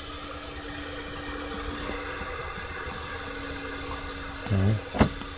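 A steady hiss with a steady low hum under it, and a short sharp knock about five seconds in.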